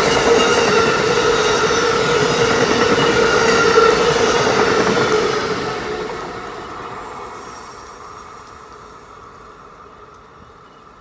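Amtrak Northeast Regional passenger cars rolling past on the rails, wheel-on-rail noise with a steady tone running through it. About five seconds in the sound starts to fade away steadily as the last car passes and the train pulls off into the distance.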